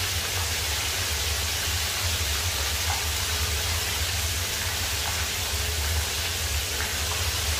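Whole fish frying in a pan of hot oil on a gas stove: the oil sizzles steadily, with a low steady hum underneath.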